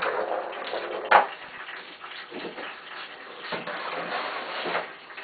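Kittens playing with a scratcher track toy and ball on a hard floor: irregular scratching and rattling, with one sharp knock about a second in.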